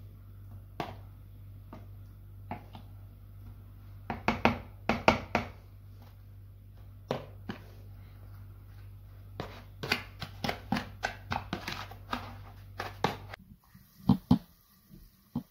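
Metal spoon clicking and scraping against plastic tubs as potato croquettes are rolled in egg and breadcrumbs, over a steady low hum. The clicks come in quick clusters, and the hum stops suddenly near the end.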